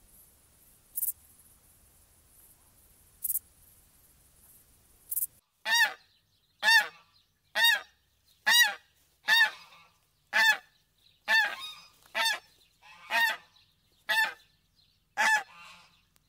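Three brief, very high-pitched chirps a couple of seconds apart. Then, from about five seconds in, white domestic geese honk loudly and repeatedly, about a dozen honks roughly one a second, each rising and falling in pitch.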